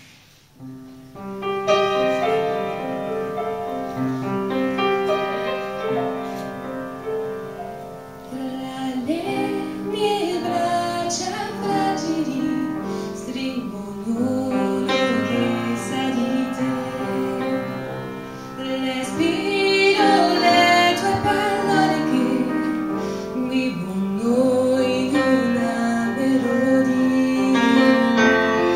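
A piano and a woman's solo voice performing a slow song: the piano plays alone at first, and the singing comes in about nine seconds in and carries on over the piano.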